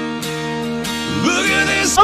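Music with strummed acoustic guitar and held notes; a sung voice slides in over it about a second in.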